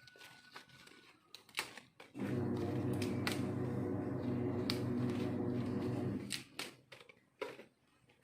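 Scattered light clicks and knocks of cookware being handled, with a steady low hum that starts abruptly about two seconds in and cuts off about four seconds later.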